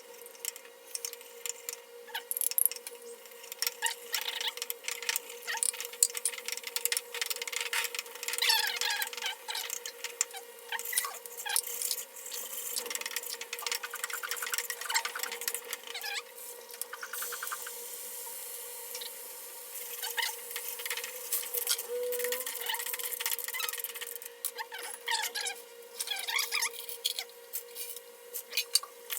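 Cooking in a pan: a utensil clatters, knocks and scrapes against it among shrimp and shellfish, with repeated short squeaks and a spell of sizzling hiss partway through.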